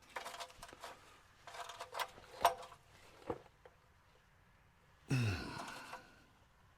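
Light metallic clicks and clinks of hand tools working under a car, the sharpest about two and a half seconds in, then a man's short sigh or grunt of effort with a falling pitch about five seconds in.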